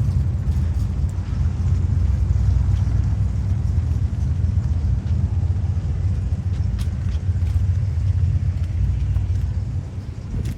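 Low, steady rumble of a car engine running close by, which fades near the end.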